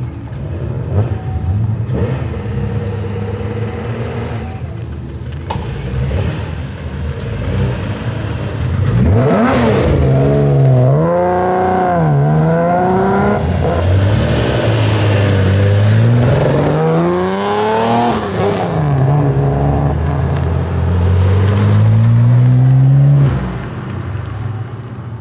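Nissan Skyline C10 'Hakosuka' engine rumbling low at first, then from about nine seconds revving hard as the car pulls away. The pitch climbs and drops several times with each gear change, then falls off sharply near the end.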